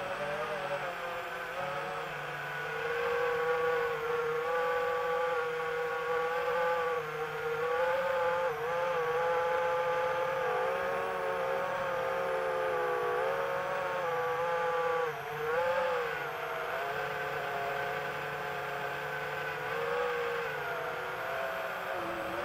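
Quadcopter motors whining steadily, the pitch rising and falling as the throttle changes through the turns, with a brief dip and swoop about fifteen seconds in.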